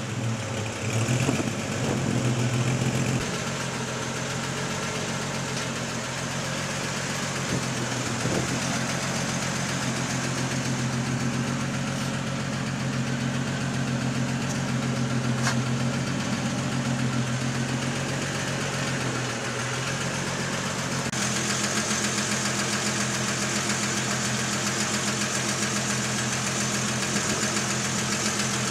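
Ford XE Fairmont Ghia engine idling steadily at the exhaust, settling just after a short rev at the start. Its tone changes slightly about three-quarters of the way through.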